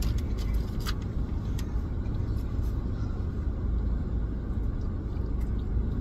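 Steady low rumble of a car heard inside its cabin, with a faint click about a second in.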